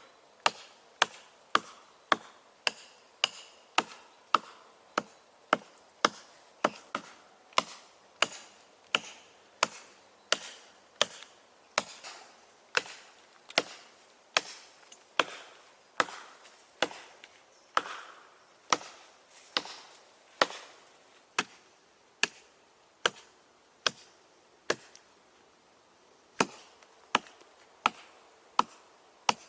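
Wood being chopped: a steady run of sharp, crisp strikes, about two a second, with a short break near the end.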